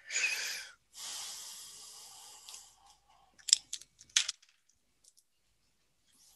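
Breath-like noise close to the microphone: a short noisy rush, then a long hiss that fades away. This is followed by a few sharp clicks about three and a half and four seconds in.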